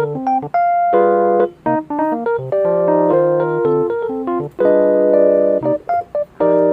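Background music: a light keyboard tune of short chords and single notes with brief gaps between phrases.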